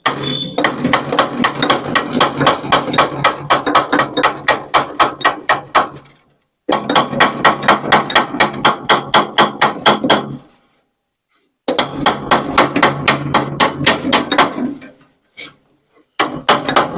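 Rapid hammer blows, about four a second, the iron head of a hammer striking the hub of a window AC's condenser fan blade to drive it off the motor shaft, where it is stuck fast. The blows come in four runs separated by short pauses.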